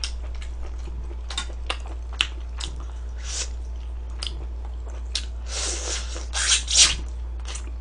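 Close-up eating sounds: scattered wet clicks and smacks of biting and chewing a pan-fried shiitake mushroom stuffed with meat, with a louder run of bites and smacks from about five and a half seconds in. A steady low hum runs underneath.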